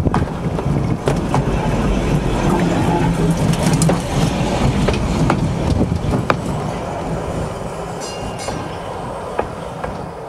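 Open electric streetcar rolling over a microphone at rail level: a heavy rumble with scattered sharp clicks from the wheels on the track, fading steadily as it moves away.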